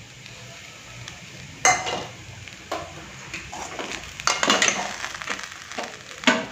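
Slotted steel spatula stirring boiled tapioca cubes in a metal kadai, scraping and clinking against the pan. The scrapes start about one and a half seconds in, come again in quick runs, and the loudest one falls near the end.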